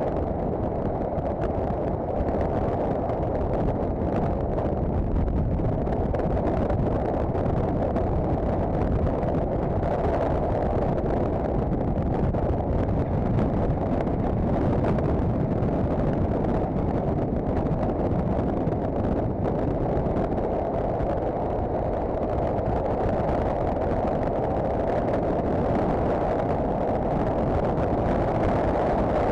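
Steady, muffled wind and road noise of a Honda CBF1000 motorcycle cruising at an even speed, the engine note blended into the rush with no change in pace.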